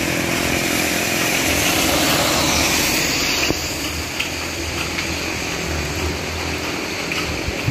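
A vehicle passing on a wet road, its tyres hissing on the wet surface as it swells to its loudest two to three seconds in and fades, over a steady rumble of street noise and light rain.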